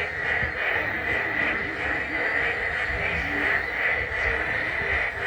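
Dense, steady chorus of many frogs calling together, an unbroken high-pitched trilling din with scattered lower croaks.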